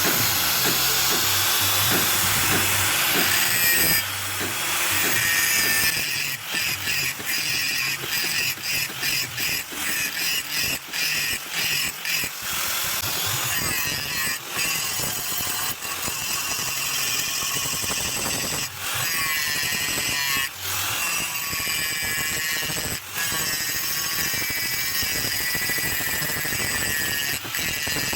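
Electric power tool running on the steel of an old car leaf spring, its whine wavering in pitch under load, with a run of sharp knocks about halfway through.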